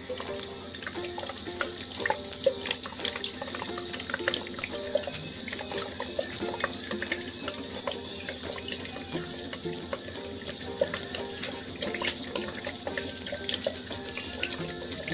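Water splashing and trickling steadily from a small homemade Shivling fountain, with many small drips and patters.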